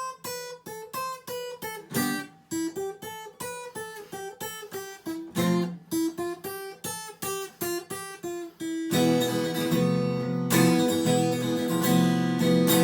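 Acoustic guitar instrumental break: a run of single picked notes, then about nine seconds in it changes to full strummed chords.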